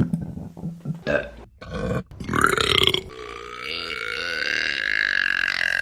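A woman burping: a few short, rough burps, then one long drawn-out burp starting about three seconds in.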